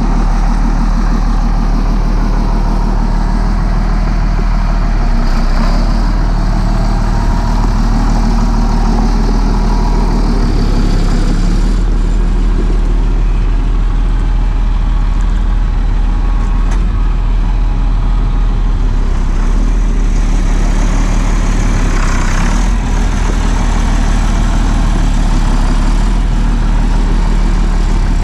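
John Deere 4640 tractor's six-cylinder turbocharged diesel engine idling steadily.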